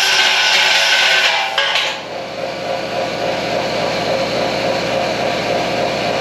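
Right-angle air grinder grinding on a stainless steel keg, a loud, even hiss that stops about two seconds in. A steadier machine hum then carries on.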